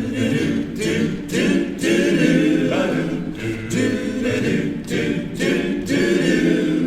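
Men's barbershop a cappella singing: several male voices in close harmony, singing phrases with short breaks between them.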